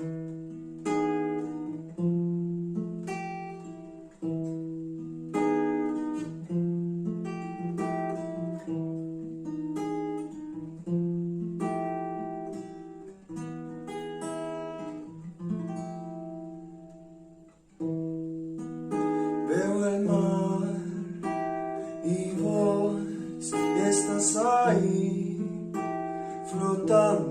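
Instrumental song intro on acoustic guitar: chords struck and left to ring, one every second or two. About eighteen seconds in the music fills out, with a high hiss and more notes joining the guitar.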